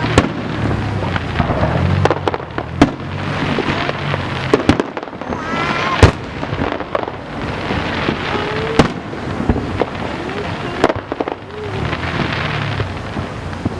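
Fireworks display: aerial shells bursting in a rapid series of bangs, with crackling between them. The sharpest bang comes about six seconds in.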